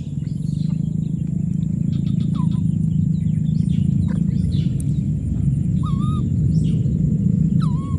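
A steady low rumble, with a short high call from an animal three times, each rising quickly and then holding its note.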